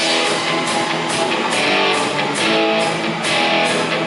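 Rock band playing: sustained guitar chords over bass and drums, with cymbals hitting in a steady beat.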